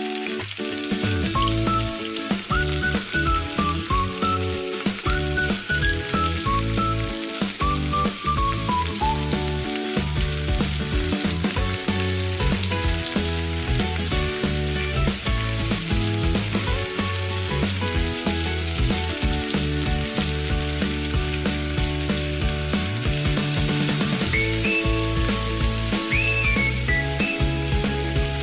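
Food sizzling as it fries in a hot pan, a steady hiss, under background music with a steady beat.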